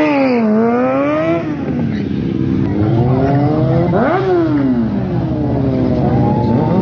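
Motorcycle engines revving over other engines idling steadily: a rev rises and falls in the first second or so, a sharp rev climbs and drops about four seconds in, and another climbs near the end.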